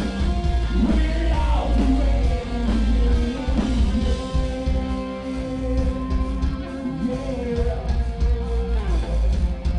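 Rock band playing live, with singing over electric guitar and heavy bass and drums.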